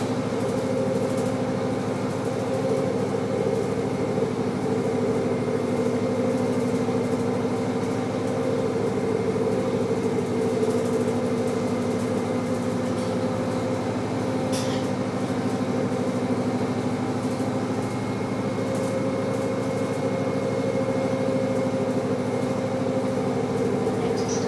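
Cabin sound of a 1996 New Flyer D40LF transit bus under way: the Detroit Diesel Series 50 engine and Allison B400R transmission droning steadily, with road noise.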